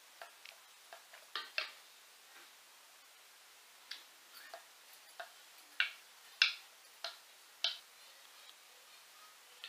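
Light, irregular clicks and taps from rolling out a papad on a wooden rolling board and lifting it off by hand: a few in the first two seconds, more from about four seconds in, the loudest about six and a half seconds in.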